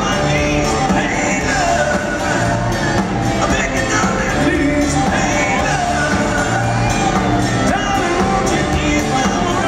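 Live band playing amplified through a large hall, with electric guitars, a steady drum beat and singing, and some shouts and whoops from the crowd.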